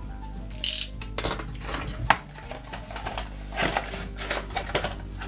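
A utility knife cuts through a frying pan's cardboard packaging sleeve, which rustles as it is handled, with scattered clicks and a sharp knock about two seconds in. Soft background music plays underneath.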